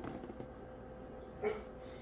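Quiet room tone with a faint steady hum, and one brief small sound about one and a half seconds in.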